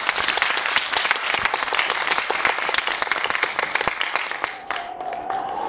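Audience applauding, a dense patter of many hands that stops about four and a half seconds in. A single held tone then comes in, rising slightly, near the end.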